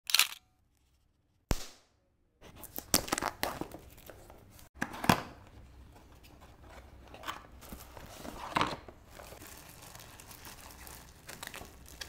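Packaging being opened by hand: paper crinkling and tearing, with irregular clicks and rustles as the cardboard box is handled. It begins with two short knocks in the first two seconds.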